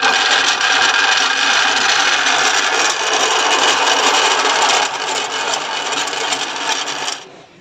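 Commercial belt-driven cheese grater machine, with an electric motor turning the cutter head, switched on for a test run. It starts suddenly and runs loud and steady, drops a little about five seconds in, and cuts off shortly before the end.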